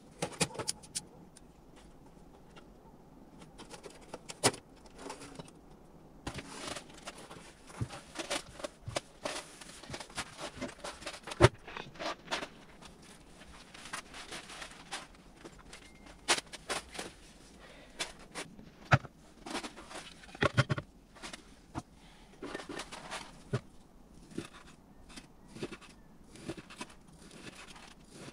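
Irregular clicks, knocks and rustling of things being handled, with a sharp knock about 11 seconds in as the loudest sound.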